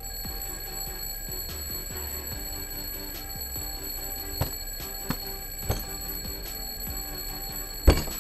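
Alarm clock ringing steadily with a high continuous tone. Three light knocks come midway, and a loud thump near the end as a hand slaps down on the clock.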